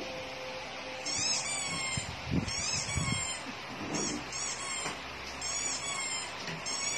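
Recorded duckling peeps played through a phone speaker: a run of high, falling peeps, often in pairs, starting about a second in.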